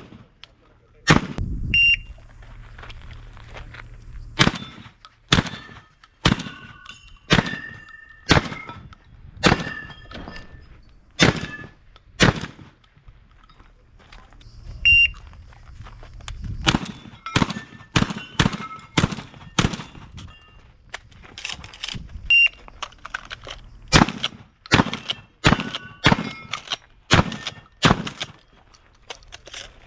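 Shotgun firing in rapid strings of sharp shots, dozens in all, with a short pause near the middle. Several shots are followed by a brief ringing tone.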